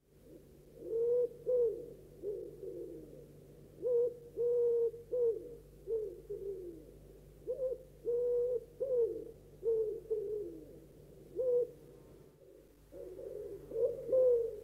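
Owl hooting: a series of short low hoots, some held and some falling in pitch, repeated about once or twice a second, with a brief break near the end.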